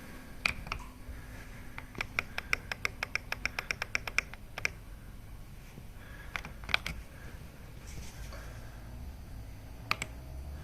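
Sharp clicks: two single ones near the start, a fast run of about sixteen at roughly six a second in the middle, then a few more spaced out, over a low steady hum.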